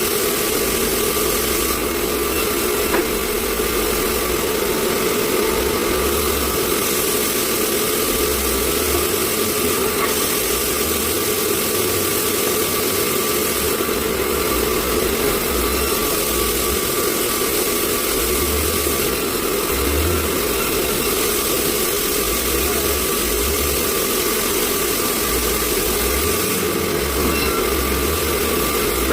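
Sawmill machinery running steadily, a constant engine-like drone with no let-up.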